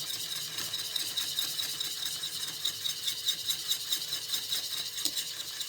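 Stirring maize meal into boiling water in a pot for pap: quick, even scraping strokes of about four a second, fast to keep lumps from forming.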